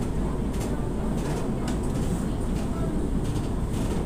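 Cabin noise inside a moving LRT Line 1 fourth-generation train car: a steady low rumble of wheels on rail, with a few faint clicks.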